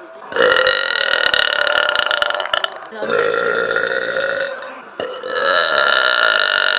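A young woman's long, drawn-out burps: three in a row, each held steady for about two seconds, the third still going at the end.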